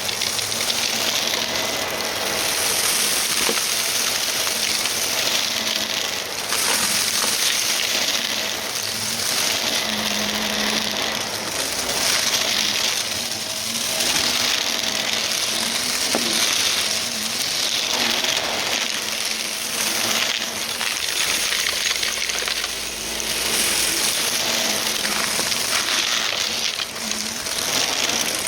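Vacuum cleaner running with its brushroll spinning, pushed quickly back and forth and crunching as it picks up dry debris. The steady motor noise swells and dips every few seconds with the strokes.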